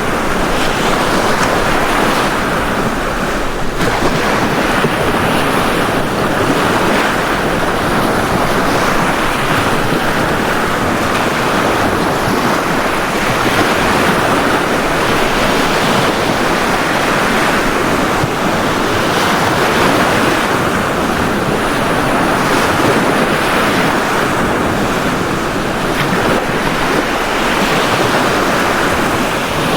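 Ocean surf washing onto a beach: a continuous rush of breaking waves that swells and eases every few seconds.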